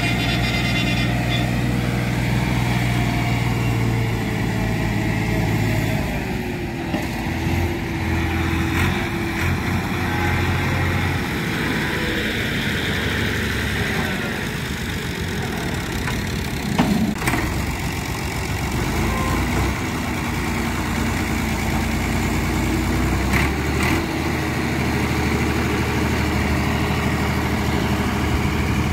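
Massey Ferguson 260 tractor's three-cylinder diesel engine running while it hauls a trolley heaped with sand through soft ground, its engine speed rising and falling. A couple of sharp knocks stand out, the loudest about seventeen seconds in.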